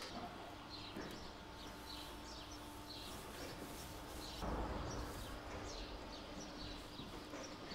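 Faint farmyard ambience: small birds chirping steadily in short falling chirps, about two a second, over a steady low hum. A brief low rumble comes about halfway through.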